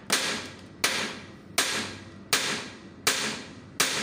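Repeated hand-hammer blows on the steel steering tie rod end of a New Holland 7500 tractor's front axle, driving the seized joint out of its arm. Six evenly spaced metallic strikes, about one every three-quarters of a second, each ringing briefly.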